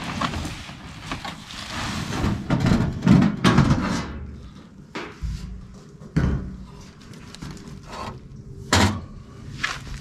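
Handling noise at a metal food smoker: rustling and knocks as its foil bubble insulation wrap is pulled off and the front door is opened, followed by a few separate sharp knocks and clatters.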